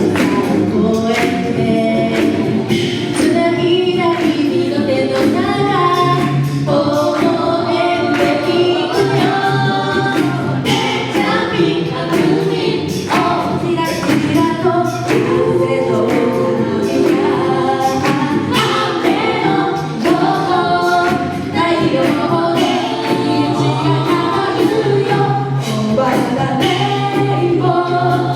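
An a cappella vocal group singing a song in close harmony, with a low bass voice line under the upper voices and a steady beat of vocal percussion.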